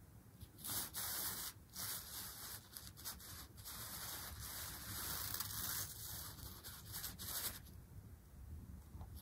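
Synthetic umbrella-canopy fabric rustling and scraping as something is dragged around underneath it. It starts about a second in, comes in uneven bursts, and stops shortly before the end.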